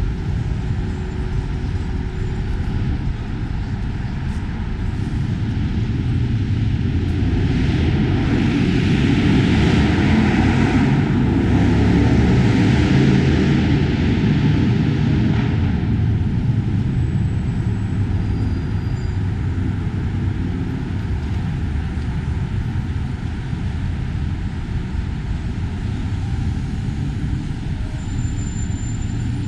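Steady rumble of city street traffic, with a louder, fuller pass from about seven to sixteen seconds in as a vehicle goes by close.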